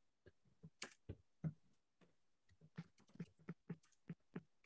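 Faint keystrokes on a computer keyboard: a quick, uneven run of clicks as a phrase is typed.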